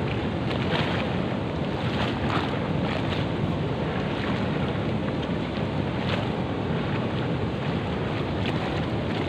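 Wind buffeting the microphone as a steady noise, with light rustles of a plastic shopping bag being handled and knotted.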